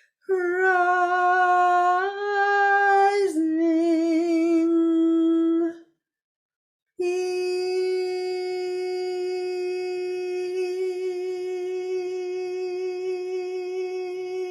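A woman's voice sounding long, slow vocal tones in a low-middle range. The first tone steps up in pitch and then drops, and after a pause for breath a single long tone is held steady with a slight waver.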